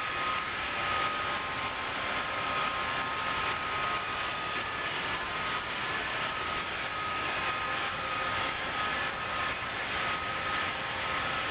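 Roomba robot vacuum running: a steady whirring hiss with a thin high whine over it.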